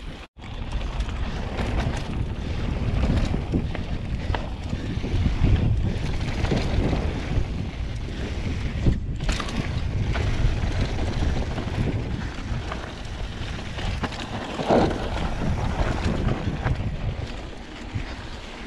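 Wind rushing over the microphone of a mountain bike's camera, with the tyres rumbling over a dirt and gravel trail and occasional knocks and rattles from the bike.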